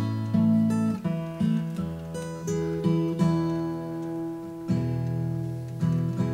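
Acoustic guitar strummed in chords, an instrumental break between sung verses of a folk song.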